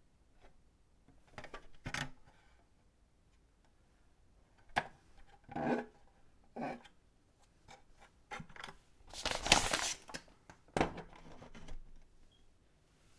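Keyboard packaging being handled and unwrapped: scattered scrapes and rustles with a few sharp knocks, the loudest a rough rustle lasting about a second past the middle.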